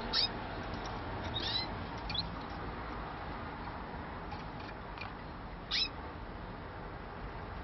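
Irish Fancy canaries giving a few short, sharp call notes that each drop quickly in pitch, the loudest near the end, over a steady background hiss.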